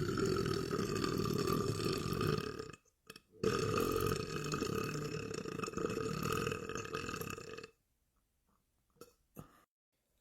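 A man belching: two long, drawn-out burps of about three and four seconds, one after the other with a short break between, each holding a steady pitch.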